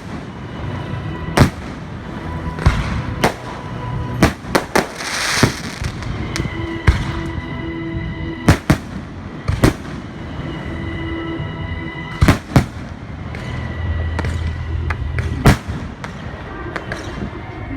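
Fireworks going off: a series of sharp bangs at irregular intervals, some in quick pairs, with a crackling burst about five seconds in.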